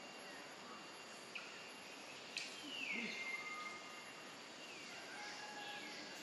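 Faint outdoor background with a few short, high, whistle-like animal calls. The loudest comes just after a sharp click about midway, sliding down in pitch and then holding for about a second.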